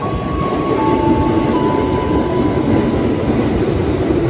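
Ex-JR 205 series electric commuter train running alongside the platform: a loud, steady rumble of wheels and running gear that swells about a second in, with faint whining tones above it that step in pitch a few times.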